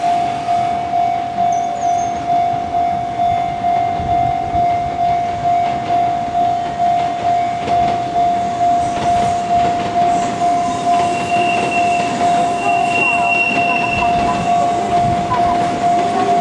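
Japanese level-crossing warning bell ringing in an even, rapid rhythm of single strikes while an electric train passes over the crossing, its wheels rumbling and clattering on the rails. A thin high whine rises from the train about eleven seconds in and fades a few seconds later.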